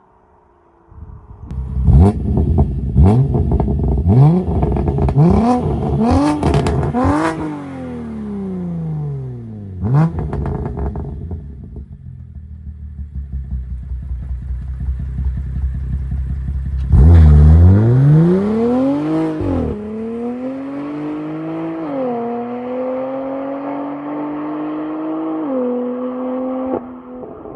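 2015 BMW M4 (F82) twin-turbo S55 straight-six through a Gesi G-Sport downpipe, Active Autowerke equal-length mid-pipe and valved Maad Max axle-back exhaust, revved in a string of quick blips that climb higher, with crackles and pops as the revs fall. It settles to a lower run, gets one more sharp rev about 17 seconds in, then drops back to a steady idle.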